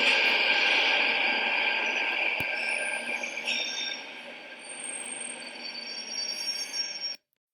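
Train running on rails with a high, steady wheel squeal, fading away over a few seconds, then cutting off abruptly near the end.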